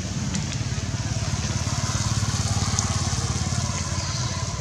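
A small engine running steadily: an even, low drone with a fast pulse.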